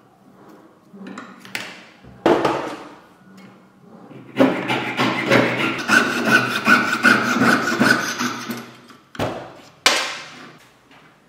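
Jeweller's saw cutting through a strip of silver sheet on a wooden bench pin: about four seconds of quick, rapid strokes. A few separate short sounds come before it, and one comes near the end.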